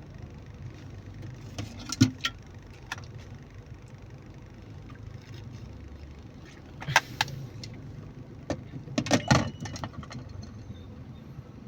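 Steady low rumble of a car cabin on the move, with a few sharp clicks and rattles about two seconds in, about seven seconds in, and a quick cluster of them about nine seconds in.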